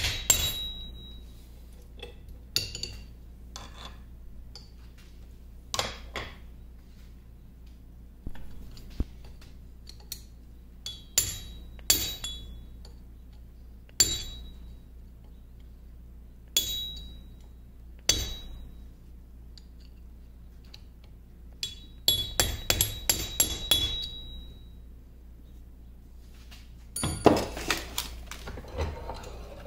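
Hammer striking a steel pin punch, sharp metal-on-metal hits with a ringing ping, single blows a couple of seconds apart and then a quick run of about eight light taps. Near the end, a short burst of clattering and rubbing as the work is handled.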